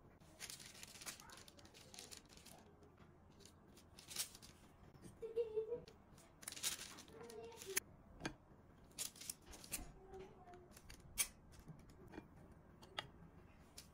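Quiet handling sounds: scattered sharp clicks and taps with a few short rustling swishes, and now and then a faint brief voice-like sound.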